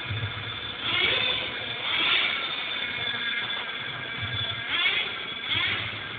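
Hong Nor X2 RC buggy's motor revving up and down in repeated rising and falling whines as it is driven.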